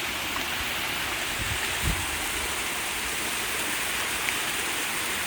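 Waterfall rushing steadily, an even wash of falling water, with a soft low bump about two seconds in.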